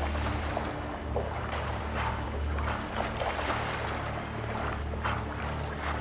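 Rumbling, churning sea water with scattered short splashes, over a steady low drone.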